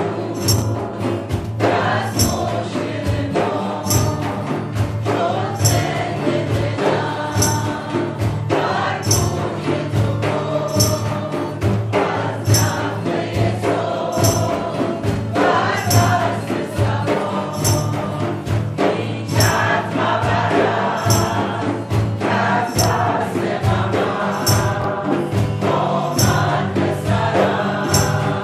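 A group singing a Sufi devotional chant, a woman's voice leading, with a frame drum and tambourine jingles marking a steady beat about once a second over a low, steady drone.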